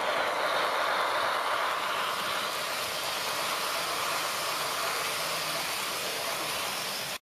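Model train of old-style passenger coaches rolling past on the layout track: a steady whirring rumble of wheels on rails. It breaks off for an instant near the end.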